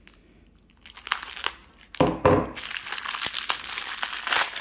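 Thin plastic packaging bags crinkling and rustling as they are handled and pulled open, with a louder bump about two seconds in. The crinkling starts sparsely and runs continuously through the second half.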